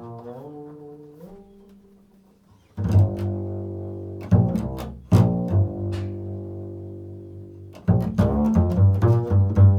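Double bass played pizzicato in a slow improvisation. A plucked note slides up in pitch about a second in, then a few long, ringing low notes follow, and from about eight seconds in comes a quicker run of plucked notes.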